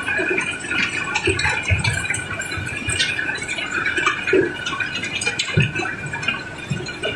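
Cobblestones clattering and tumbling against one another as they pour off a barge's load, a dense run of knocks with a few heavier thuds.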